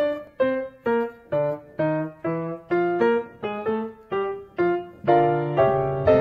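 Solo piano background music: a slow melody of single struck notes, each fading away, about two a second. The notes grow fuller and ring longer about five seconds in.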